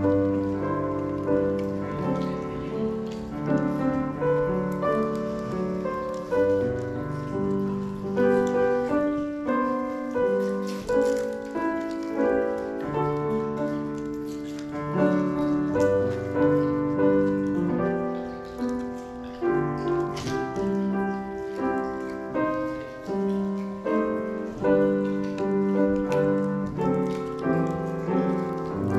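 Instrumental keyboard music with no singing: slow chords held over low bass notes.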